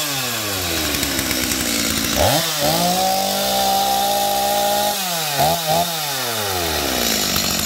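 Stihl MS250 two-stroke chainsaw running. It falls from a rev to idle, is revved up about two seconds in and held at full throttle for about two seconds, then drops back, gets two quick blips of the throttle, and settles to idle.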